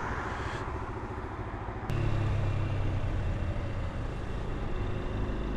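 Kymco Quannon motorcycle engine running at low road speed, with wind hiss on the microphone. About two seconds in there is a short click, and the engine note comes up louder and holds steady.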